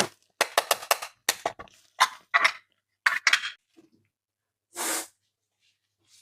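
Small plastic toy pieces clicking and tapping together in quick clusters as they are handled, followed by one short swish near the end.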